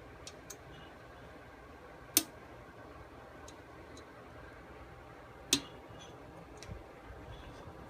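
Small sharp clicks and taps of a hex key working on the grinder's screws, with two louder clicks, one about two seconds in and one about five and a half seconds in, and a few faint ticks between.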